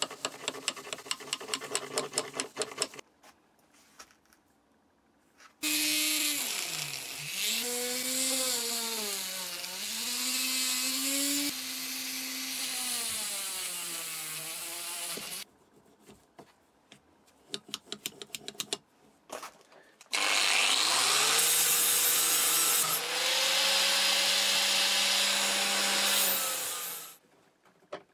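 A brush scrubbing the metal pliers in quick strokes for about three seconds. Then a handheld rotary tool with a felt polishing bob runs on the pliers' jaws, its whine dipping and rising as it is pressed into the work. After a pause with a few light scrapes it runs again, spins up, holds a steady pitch and stops shortly before the end.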